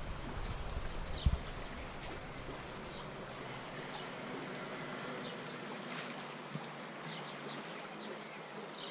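Shallow river running over stones and rocks, a steady rushing of water.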